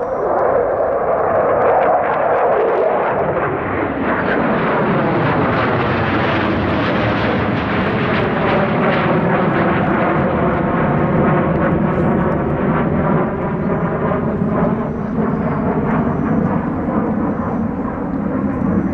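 JASDF F-15J fighter's twin turbofan engines, a steady jet roar as it flies a display pass. The roar grows brighter toward the middle and then dulls as the jet moves away, with a swirling, phasing tone across it.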